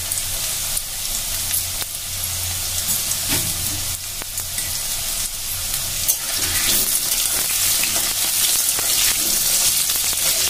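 Potato chunks sizzling and crackling in hot oil in a metal kadai, with a metal spatula stirring among them. The sizzle grows louder about six seconds in.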